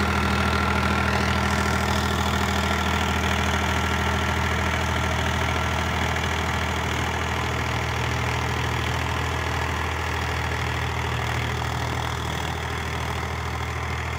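Powertrac 439 Plus tractor's 41.7 hp diesel engine running steadily under load, driving a 7-foot rotavator through soil, the rotor churning the earth under the engine hum. It grows a little quieter near the end.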